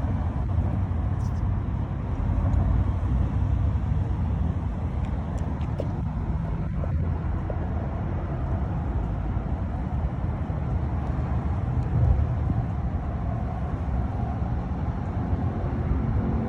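Steady low outdoor rumble, like road traffic or wind on the microphone, with a few faint small clicks about a third of the way in.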